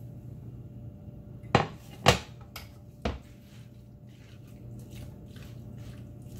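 Red silicone spatula and white dish clattering against a nonstick pan as marinated chicken drumsticks are tipped in: three sharp knocks between about one and a half and three seconds in. After that comes softer scraping as the chicken is stirred in the pan, over a low steady hum.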